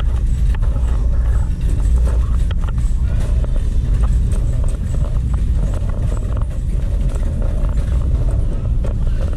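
Wire shopping cart rolling along a hard store floor: a steady low rumble from the wheels with light rattling and clicking of the metal basket.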